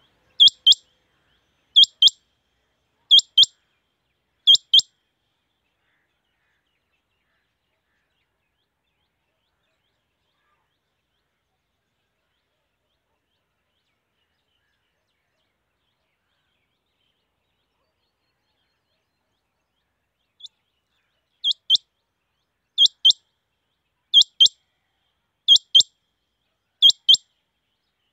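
Rain quail calling: sharp, high double notes, one pair about every second and a half, in a bout of four, then a pause of about fifteen seconds before a second bout starts.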